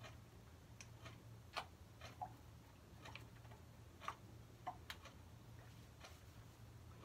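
Faint, irregular small clicks and ticks, about a dozen, some with a brief squeak, from a plastic applicator bottle of hair oil being squeezed and dabbed along the scalp. A low steady hum lies underneath.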